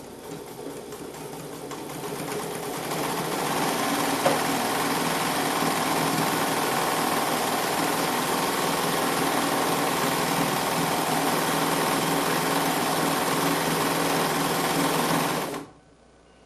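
Bernina 940 sewing machine running, speeding up over the first few seconds and then running steadily at high speed, with a single knock about four seconds in, before stopping suddenly near the end.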